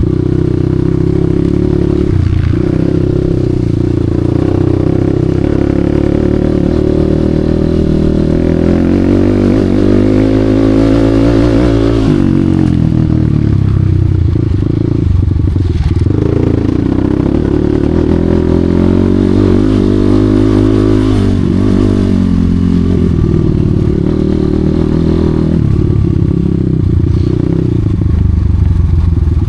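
Enduro dirt-bike engine running hard under load, its pitch rising to high revs and dropping back twice as the throttle is worked, with some clattering.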